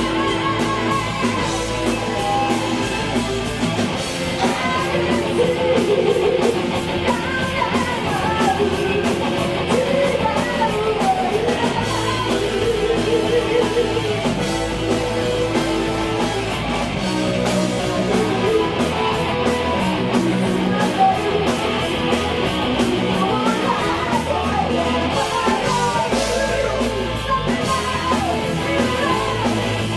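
Live rock band playing a song: a woman sings the lead over electric guitars, keytar and a drum kit, loud and continuous.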